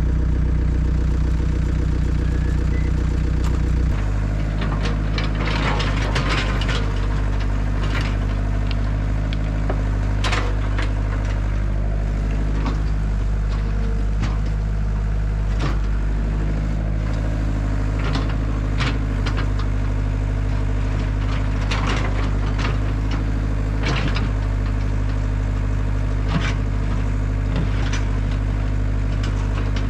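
Caterpillar 307SSR mini excavator's diesel engine running steadily while digging, with repeated scrapes and clunks of the bucket in dirt and stones. The engine note changes about four seconds in.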